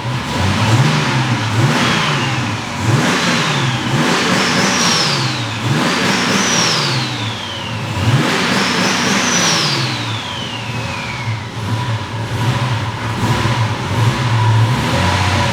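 Mercedes 190E's turbocharged M103 straight-six revved in several blips, its pitch rising and falling. After the bigger blips a turbo whistle climbs high and then winds slowly down. The engine settles to a steadier run over the last few seconds.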